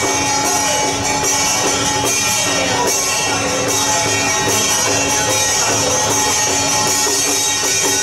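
Loud outdoor procession music: a shrill reed-like wind melody over steady held tones, with a dense high hiss from crowd and street noise.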